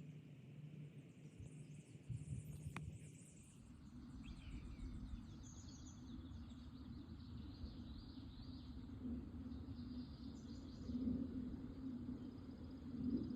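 Outdoor woodland ambience: songbirds chirping faintly over a steady low rumbling noise, with a single short knock about a third of the way in.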